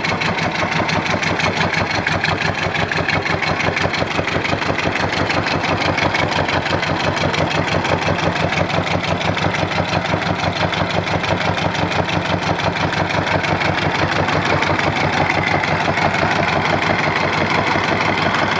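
Isuzu 2AB1 25 hp marine diesel engine running steadily on a test stand, with an even, rapid pulsing beat that does not change in pace.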